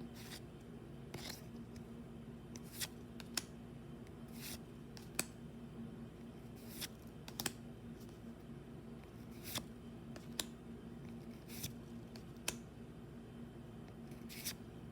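Pokémon trading cards being handled and flicked through one after another: short crisp sliding snaps, about one a second at an uneven pace, over a steady low hum.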